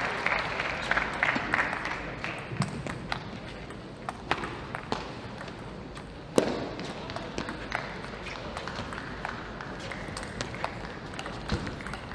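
Applause fading out, then sharp intermittent clicks of a table tennis ball striking the table and rubber paddles, over low arena crowd noise. The loudest click comes about six seconds in, as play resumes.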